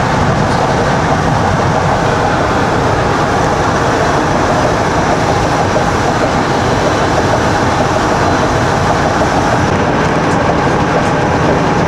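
Steady loud rumbling and rattling of a moving vehicle heard from inside, with no break or change.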